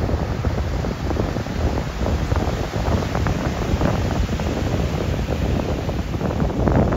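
Ocean surf breaking and washing up a sandy beach, with wind buffeting the microphone in a low, fluttering rumble.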